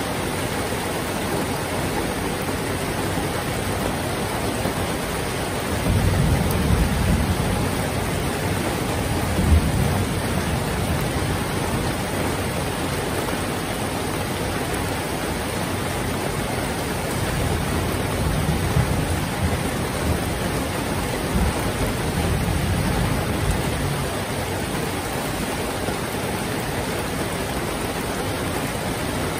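Heavy rain falling steadily, with low rolls of thunder rumbling under it, one starting about six seconds in and another about eighteen seconds in.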